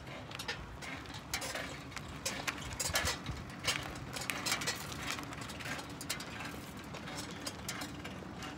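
Cruiser-style bicycle squeaking as it is pedalled: an uneven run of short squeaks and clicks, about one or two a second, over a low rumble of riding.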